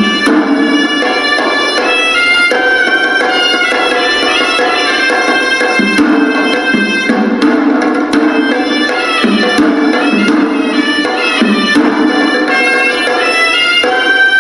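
Hewisi, Sri Lankan temple ritual music: the horanewa, a reedy double-reed shawm, plays a shifting, ornamented melody over strokes of the hand drums.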